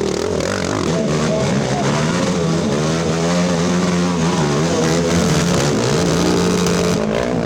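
Several racing ATV engines revving at once, their pitches rising and falling as the riders open and close the throttle.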